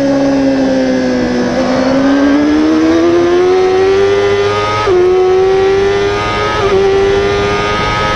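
Kawasaki superbike's inline-four engine heard on board at racing speed: the revs sag slightly through a bend, then climb steadily under hard acceleration, fall sharply on an upshift about five seconds in, dip briefly once more and pull on, with wind rush underneath.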